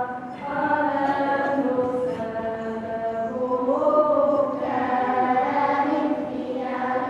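Choir of voices singing a slow nativity-play song in long held notes, with a brief break just after the start.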